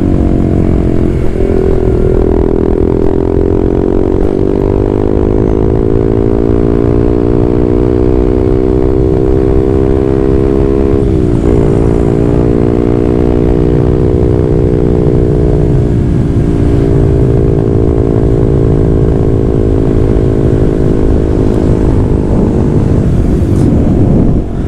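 Honda CB150R single-cylinder engine running through an aftermarket WRX GP6 slip-on silencer and stainless header while riding. The pitch climbs slowly and steadily, dips sharply about eleven seconds in and briefly around four and sixteen seconds, then climbs again.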